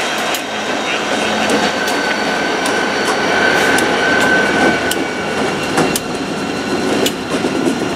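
A string of NYSW EMD SD-series six-axle diesel locomotives running past close by, engines working as they move, wheels clicking over rail joints, with a steady high tone over the din.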